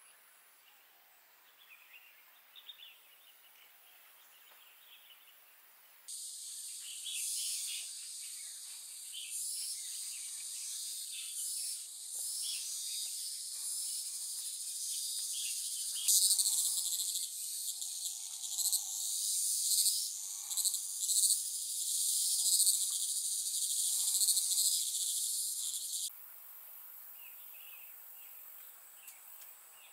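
A high-pitched chorus of singing insects. It is faint at first, jumps in loud and dense about six seconds in, grows louder partway through and cuts off abruptly near the end. A few lower calls sound under it in the middle.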